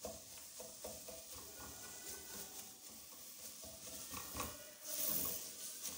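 Sliced onions sizzling in ghee in a stainless steel pot as they are sautéed, stirred with a spatula that scrapes and knocks against the pot. The sizzle briefly grows louder about five seconds in.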